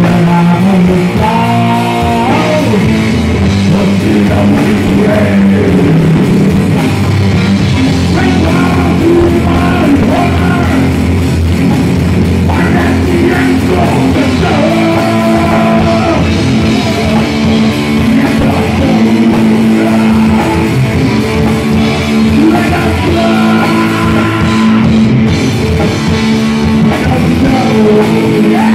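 Hard rock band playing loud and live: electric guitar, bass and drum kit, with a male voice singing.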